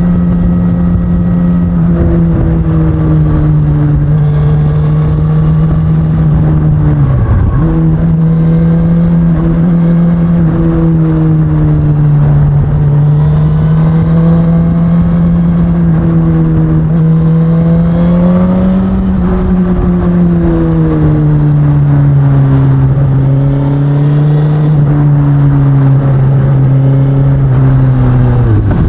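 2019 Suzuki Katana's inline-four engine on its stock exhaust, running steadily under way with slow small rises and falls in pitch. The engine note dips sharply and briefly about seven seconds in and again near the end.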